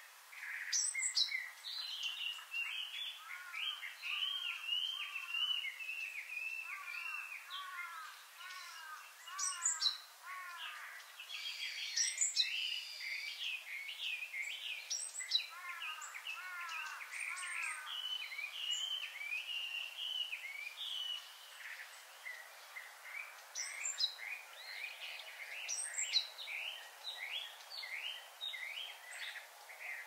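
Wild songbirds calling and chirping, several at once: quick chirps overlap with runs of short, repeated down-slurred notes, and now and then a sharp, high call stands out.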